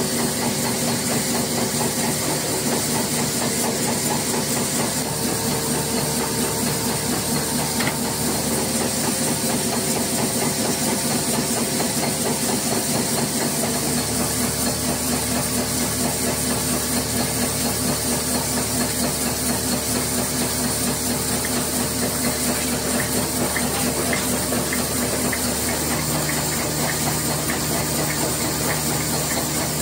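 Wire-fed cold heading machine for screw blanks running steadily: a rapid, even mechanical clatter of its cutting and heading strokes over a constant hum and hiss.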